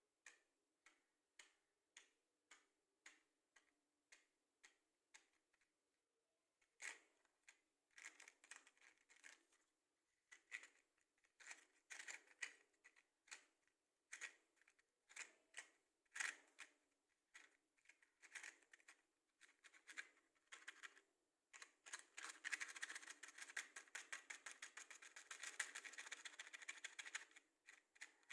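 Faint wooden matchsticks being handled: light clicks about two a second at first, then irregular tapping and clattering, and a dense, continuous rattle near the end.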